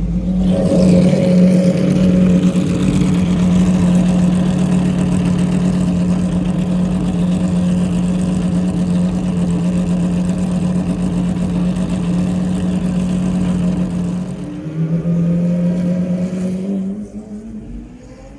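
Pagani Zonda R's V12 engine running at a steady, low engine speed with a deep, even drone. The drone dips briefly about fifteen seconds in and fades near the end.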